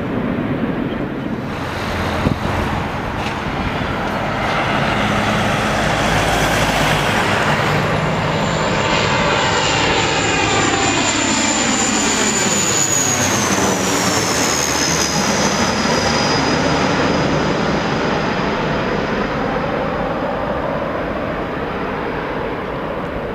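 Large jet airliner passing low on its landing approach: a loud engine rush builds, and a high fan whine drops in pitch about two-thirds of the way through as the jet goes by, then eases off near the end.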